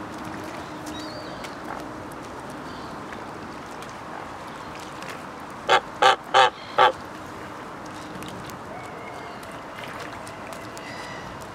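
White domestic goose honking four times in quick succession, about two-thirds of the way in, over a steady background hiss.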